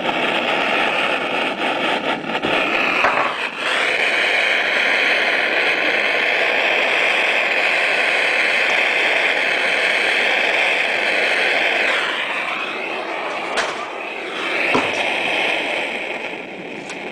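Steady hiss of a roofer's gas-fired soldering iron while solder is melted along a zinc seam, stronger and brighter from about 3 seconds in until about 12 seconds in.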